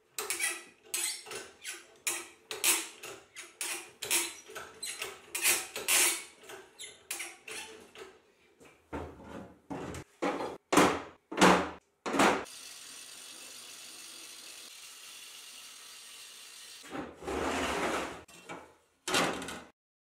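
Hand-tool work on steel at a bench vise: a quick run of short scraping strokes, about two a second, then a few louder strokes. After that comes a faint steady hiss and two short noisy bursts near the end.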